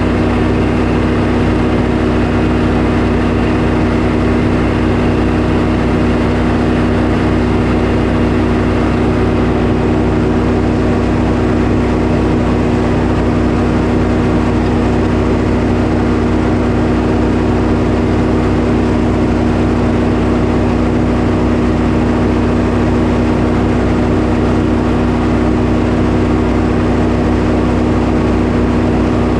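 Sawmill engine running steadily at a constant pitch while a pine log is milled.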